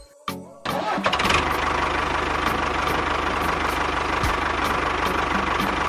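Tractor-style engine sound starting abruptly under a second in, then running steadily with a fast, even putter.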